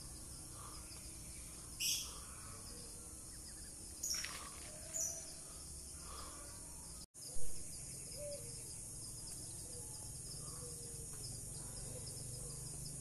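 Steady high insect chirring with a handful of short bird chirps, the loudest a little past the middle. The sound cuts out for an instant just before that loudest chirp.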